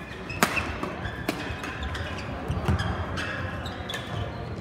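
Badminton rally: rackets striking the shuttlecock in sharp cracks, the loudest about half a second in and another about a second later, with brief squeaks of court shoes on the floor between them.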